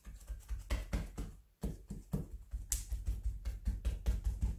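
Bread dough being rounded under the palm on a silicone baking mat: a quick, rhythmic run of soft thumps and taps as the hand rolls the ball against the mat, with a brief break about a second and a half in.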